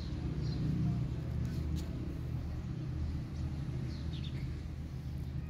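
Outdoor background of a steady low rumble, like distant traffic, with faint short bird chirps about half a second in and again around four seconds in.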